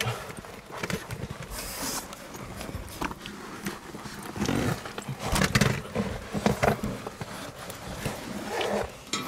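A person's movement noise as they scramble over rough rock with a camera in hand: irregular scuffing, rubbing and handling noise mixed with hard breathing, loudest about halfway through.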